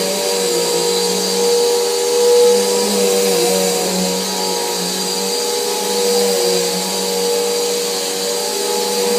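Vacuum cleaner running steadily, a constant motor hum with a whine over airflow hiss.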